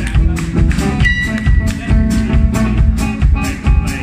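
Live blues band playing an instrumental groove: electric bass and drum kit keeping a steady beat, with guitar.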